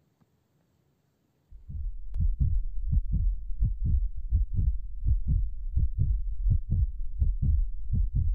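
Heartbeat sound effect: even, low thuds, about three or four a second, starting about a second and a half in after near silence.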